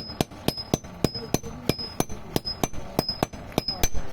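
Hand hammer striking hot iron on an anvil while nails are forged, a steady rhythm of about four blows a second. Many blows carry a short, high metallic ring.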